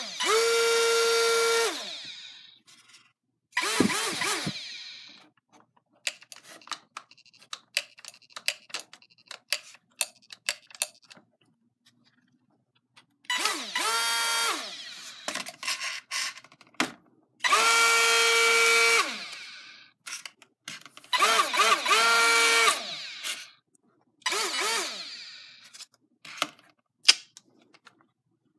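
A micro airboat's small electric motor spinning its propeller in bursts: a high whine that spins up and winds down about six times. Light clicks and ticks come between the bursts, with one sharp click near the end.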